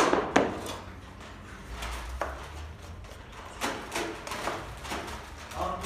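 A large knife cutting raw layered baklava into squares in an aluminium baking tray, each stroke a short knock as the blade strikes the tray bottom, coming in small clusters. The loudest knocks come right at the start.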